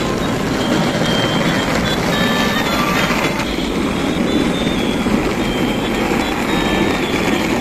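Battery-powered toy trains running on plastic track: a steady whirring rattle of small electric motors and wheels. Faint, short high tones come and go over it.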